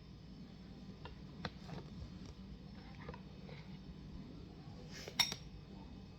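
A single sharp clink of glassware about five seconds in, with a few faint small knocks before it, over a low steady hum.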